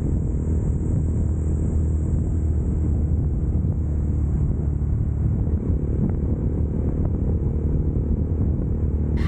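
Honda Monkey 125's single-cylinder four-stroke engine running at a steady pace while riding, with a low noisy rumble underneath.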